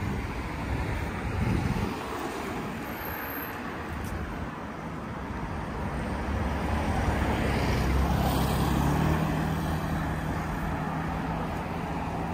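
City road traffic: cars driving past on a multi-lane street. One vehicle passes closer about seven seconds in, swelling louder with a low engine hum, then fades.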